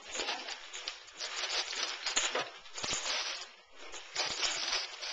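Paper crinkling and rustling in repeated irregular bursts as a present is handled, with a short lull a little over halfway through.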